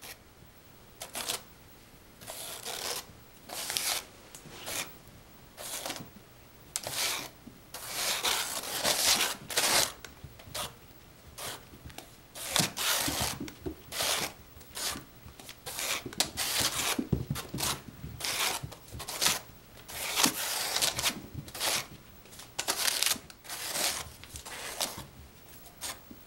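Kittens' paws and claws scuffing and scratching on carpet as they pounce and spin, in irregular rustling bursts of a second or less.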